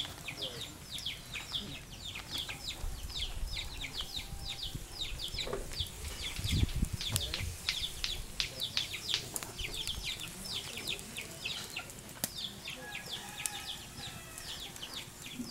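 Birds chirping: a steady run of quick, high, falling chirps, several a second. A brief low rumble comes about halfway through.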